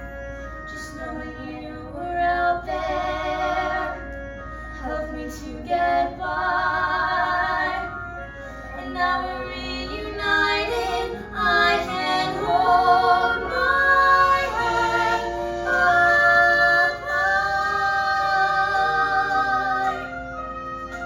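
Soundtrack music with a high female voice singing long, wavering notes over the accompaniment.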